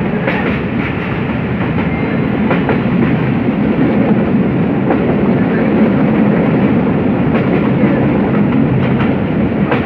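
Passenger train running along the line, heard from inside a carriage: a steady rumble of wheels on rails, with a few faint clicks from the wheels passing over rail joints.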